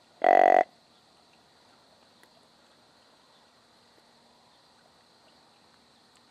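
A single short, buzzy deer grunt call blown once, about half a second long, near the start, followed by only faint background.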